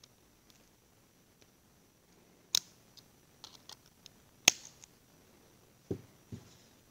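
Small parts clicking as a hydraulic valve lifter is taken apart by hand: two sharp clicks about two seconds apart, the second the loudest, with a few light ticks between them, then two duller knocks near the end.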